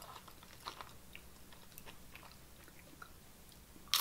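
Quiet mouth sounds of chewing and light clicks of chili-topped nacho tortilla chips being handled in a plastic tray. Near the end comes a loud crisp crunch as a tortilla chip is bitten.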